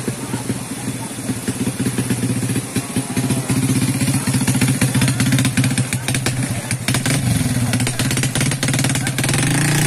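A motorcycle engine running steadily close by. Its speed dips and picks up again about seven seconds in.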